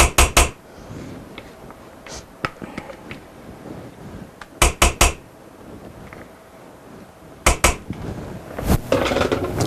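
A spatula knocking against a mixing bowl and cake pan while thick cake batter is scraped out of the bowl. There are quick bursts of sharp knocks, four at the start, four more about five seconds in and two a little later, then a rougher scraping near the end.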